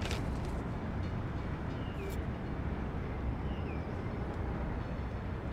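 Steady low background rumble of ambient noise. A few faint, short, high falling chirps come through it, with a light tick about two seconds in.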